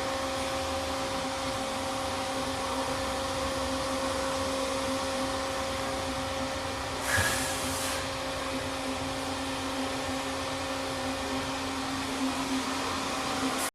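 Daewoo Lynx CNC lathe running with a steady machine hum and a few constant tones. A brief hiss comes about seven seconds in.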